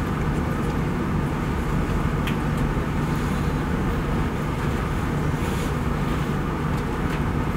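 Steady low hum with hiss: room and recording noise with no speech.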